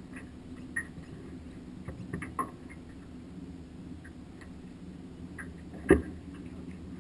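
Boat motor running steadily with a low hum, with scattered light clicks and one sharp knock about six seconds in.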